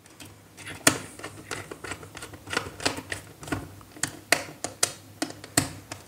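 Small screwdriver turning a switch's terminal screw to clamp a wire on a switchboard: a run of irregular light clicks and scrapes of metal on plastic, a few sharper ones about a second in and near the end.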